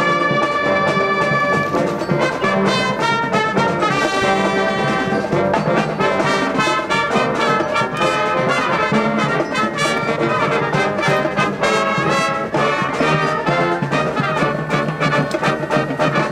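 Brass band playing: trumpets, trombones, saxophones and sousaphones sounding together in a full ensemble.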